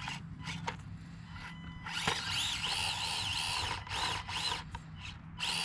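Axial SCX24 micro RC crawler's small electric motor and gears whining as it is driven on a climb. The whine starts about two seconds in and rises and falls in pitch about twice a second, stops, then comes back briefly near the end.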